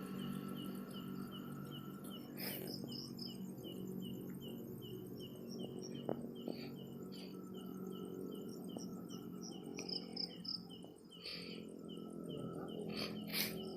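Night insects chirping: one high chirp repeating steadily about two and a half times a second, with other higher chirps joining now and then, and a few brief rustles.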